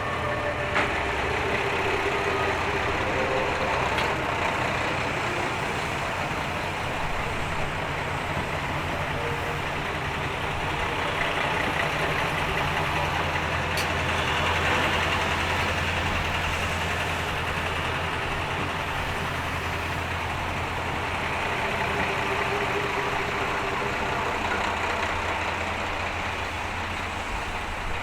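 Vehicle engine running steadily with a low hum, loudest around the middle and easing a little near the end.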